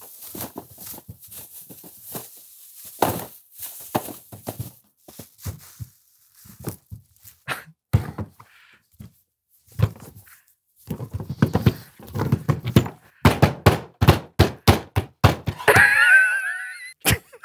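A plastic shopping bag rustling and crinkling, then a run of quick thuds and knocks on a wooden tabletop as bananas are pushed about. It ends in a brief high-pitched laugh.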